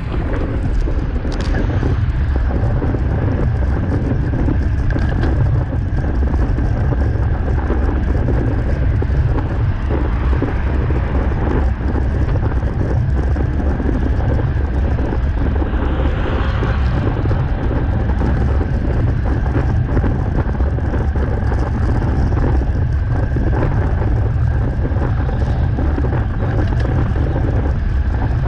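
Steady low rumble of wind buffeting an action camera's microphone while riding a road bike, mixed with tyre and road noise.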